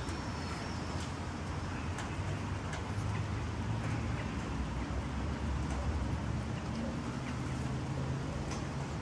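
Steady low rumble of urban road traffic, with a few faint light ticks over it.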